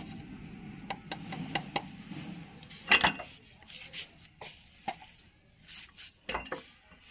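Scattered metal clinks and knocks of hand tools and parts against a John Deere tractor's PTO cover and rear housing as the cover is fitted, with one sharper knock about three seconds in. A low steady hum underneath fades out after a couple of seconds.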